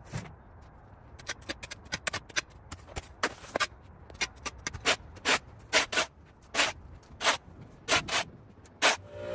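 Vine-tangled brush being cleared by hand: an irregular string of sharp snaps and crackles, at times several a second, the loudest ones coming in the second half.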